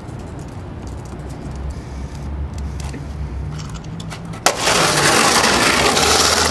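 Skateboard on a concrete ledge and asphalt: low steady rumble with a few faint clicks, then a sharp clack about four and a half seconds in, then the loud rush of the wheels rolling over rough asphalt.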